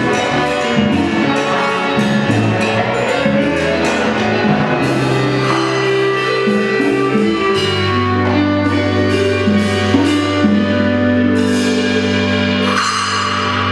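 Live band with congas, drum kit, saxophones, keyboard and guitar playing an instrumental passage: busy drum and conga rhythm at first, then the band settles on a long held chord, with two cymbal crashes near the end.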